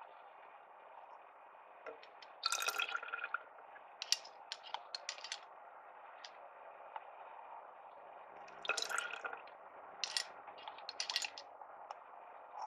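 Ice cubes dropped into a small glass jar of milk, splashing and clinking in two bursts, then spoonfuls of espresso poured over them with splashes and drips a little later.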